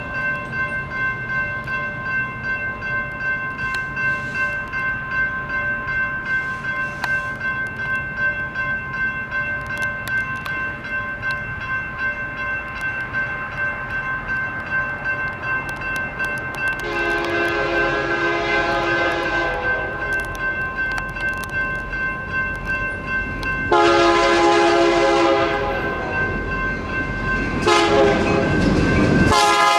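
Electronic railroad crossing bells ringing steadily throughout. A little past halfway the approaching EMD GP40-2 locomotive starts sounding its horn for the crossing: a long blast, a second shorter one, a short one, and the final long blast beginning at the very end, with the train's rumble building beneath the last blasts.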